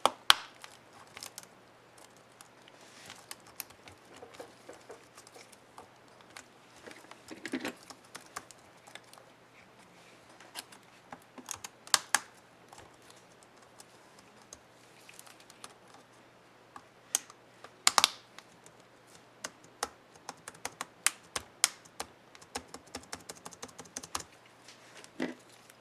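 HP Stream 11 laptop keyboard keys being pressed and clicking, irregular single clicks with quicker runs of presses toward the end, as when keys are tested after a keycap is fitted.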